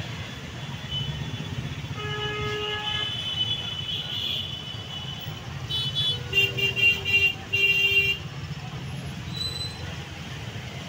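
Vehicle horns honking in jammed street traffic: one horn about two seconds in, then a quick string of short honks around six seconds in, ending in a longer blast. A steady low rumble of idling motorbike and auto-rickshaw engines runs underneath.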